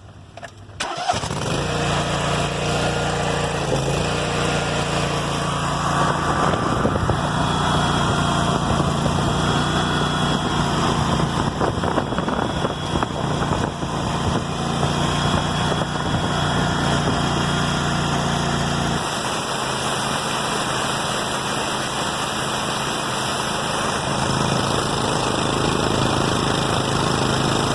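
A gas-engine pressure washer starting about a second in, then running steadily at a fixed throttle with a loud, even hiss over the engine hum. The low hum changes pitch near the end.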